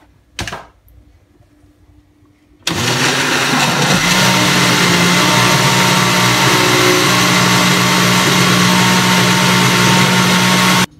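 Oster countertop blender switching on about two and a half seconds in and running steadily for about eight seconds, churning a full glass jug of cassava, banana, ice and milk, then cutting off suddenly near the end. A brief knock comes about half a second in.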